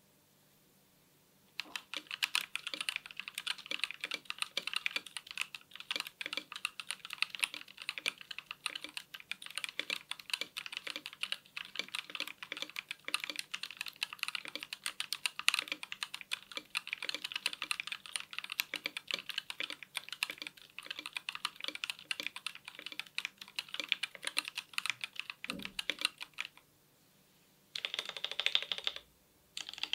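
Typing on a FiiO KB3 mechanical keyboard with Gateron G Pro 3.0 Yellow linear switches: a fast, steady stream of keystrokes. It starts a little under two seconds in, stops briefly near the end, then picks up again in short bursts.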